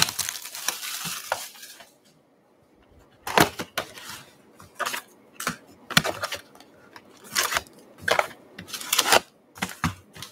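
Plastic shrink wrap crinkling as it is torn off a cardboard trading-card box, then after a short pause a string of light clicks and rustles as the box is opened and card packs are taken out and set down on a wooden table.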